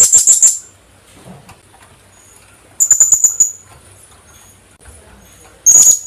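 Philippine hanging parrot (Loriculus philippensis) calling: loud bursts of rapid, shrill, high-pitched notes about every three seconds, with faint single high notes in between.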